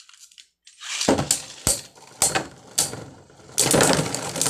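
Beyblade Burst spinning tops clashing in a plastic stadium. A rattling spin begins about a second in, broken by sharp clacks of hits, and ends near the end in a loud clatter as Glide Ragnarok bursts apart.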